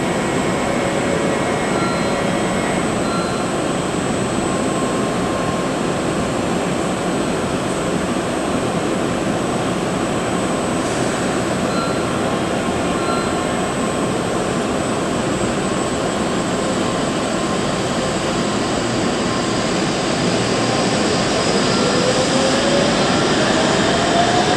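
Steady rushing noise beside an N700S Shinkansen standing at the platform, with two brief pairs of faint beeps. About four seconds before the end, a rising electric whine from the train's traction motors and inverters starts as it begins to pull away.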